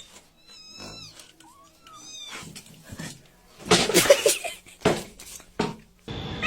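A cat meowing twice in short rising-and-falling calls, then a louder, harsher burst about four seconds in, followed by a couple of sharp knocks.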